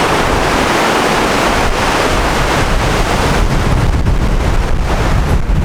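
Sea surf washing on the shore, with wind buffeting the microphone; the low wind rumble grows stronger about halfway through.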